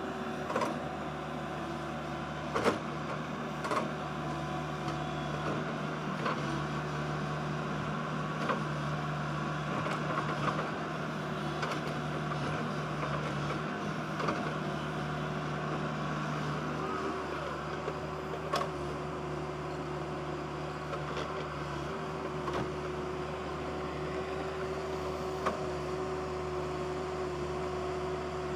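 JCB 140 tracked excavator's Cummins diesel engine running steadily under working load while it digs, its tone shifting slightly about halfway through. Occasional short sharp knocks, a few seconds apart, stand out over the engine.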